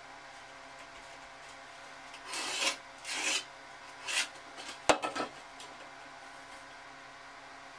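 Spirit level scraped and slid across rough cement backer board in three short rasping strokes, then a sharp knock as it bumps the board just before five seconds in, followed by one more brief scrape.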